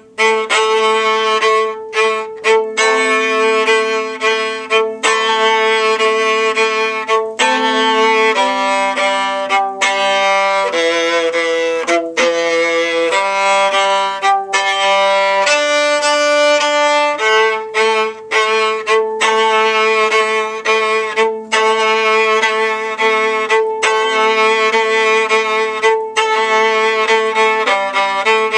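Solo viola bowing a fast passage of short repeated notes, mostly on the same pitch, with a stretch of changing notes in the middle.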